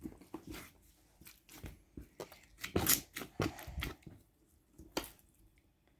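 Homemade clear slime, over-activated and jiggly, being squeezed and handled by hand: irregular small clicks and squelches, the loudest a little before and after three seconds in.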